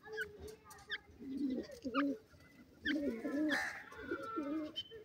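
Birds calling: repeated low, wavering cooing phrases, with a few short, sharp rising chirps between them.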